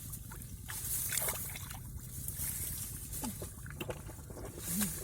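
Muddy water sloshing and splashing in irregular bursts, with short squelches and knocks.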